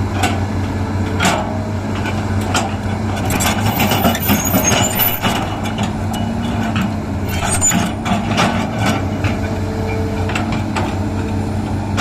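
Hydraulic excavator's diesel engine running steadily while it digs, with scattered metallic clanks and a few brief high squeaks.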